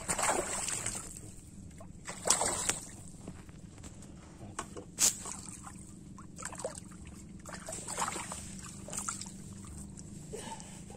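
Irregular water splashes and sloshing as a hooked carp thrashes at the surface, the loudest in the first three seconds, with a single sharp click about five seconds in.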